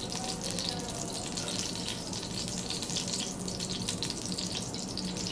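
Ghee sizzling with fine crackles as it melts in a hot pot, a steady hiss.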